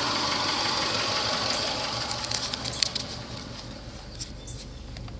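Subaru Legacy boxer engine idling with a fast, even ticking clatter, which the owner suspects is engine knock. It grows quieter about halfway through.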